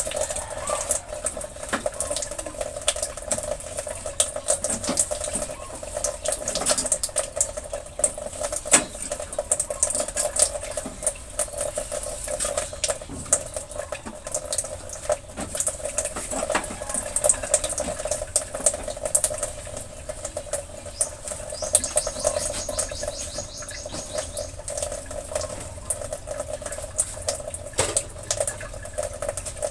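A cloth wiping and scrubbing a metal gas range top, with scattered rubs and small knocks, over a steady hum.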